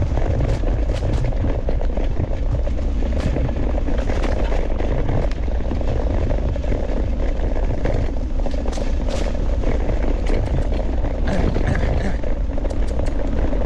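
Steady rolling and wind noise from a dog scooter moving fast along a dirt forest trail, with scattered clicks and rattles throughout.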